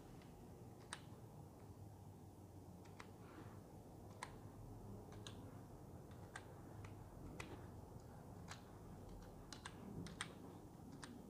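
Faint, irregular taps of typing on a smartphone's on-screen keyboard, about a dozen keystrokes spread over the stretch, over low room tone.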